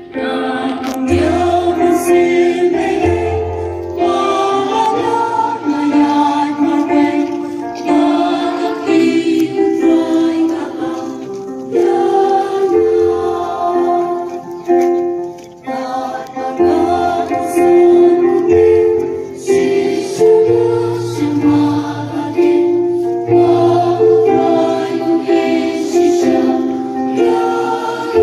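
Choir singing, with instrumental accompaniment and held bass notes underneath.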